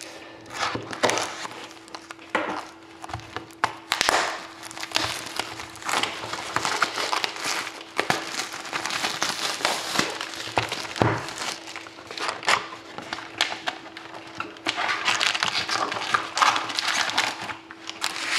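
A shrink-wrapped cardboard box of hockey cards being slit open with a knife, then the plastic wrap and the foil card packs crinkling and rustling as they are handled, with irregular scrapes and clicks. The crinkling is busiest near the end as the packs come out.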